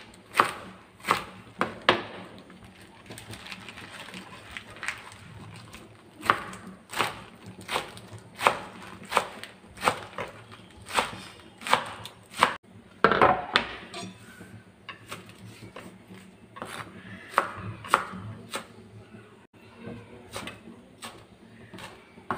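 Kitchen knife chopping radish greens on a wooden cutting board: a series of sharp knocks, about one or two a second, in runs with short pauses between them.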